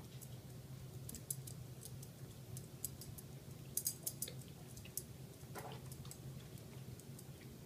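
Labrador retriever mouthing and licking a mandarin orange: scattered wet clicks and smacks from its mouth, with a quick cluster about four seconds in and a brief rustle a little later.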